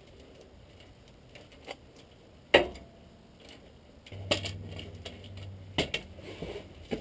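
Sporadic metal clanks as a track rod and hand tools are handled under a Land Rover Defender and the rod is set down on a concrete floor. The loudest single clank comes about two and a half seconds in, and a few more follow in the second half over a steady low hum.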